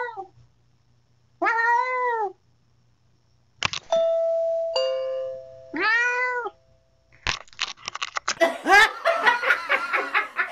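A cat meowing three times, loud and drawn out, into a video doorbell. About four seconds in, a two-note doorbell chime rings and holds for a few seconds. Near the end, laughter and a busy jumble of sound take over.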